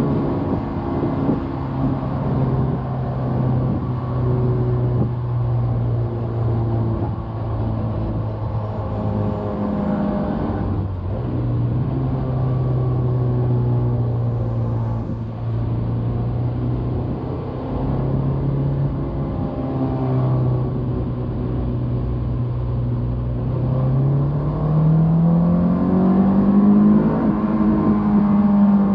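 2001 Honda S2000's 2.0-litre four-cylinder VTEC engine pulling the car along at steady revs, with a brief dip about ten seconds in, then revs climbing toward the end.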